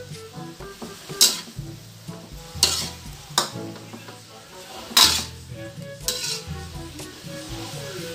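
Slotted metal spatula scraping and clanking against an aluminium wok as string beans and pork are stir-fried, over a steady frying sizzle. About five sharp scrapes come at irregular intervals, the loudest about five seconds in.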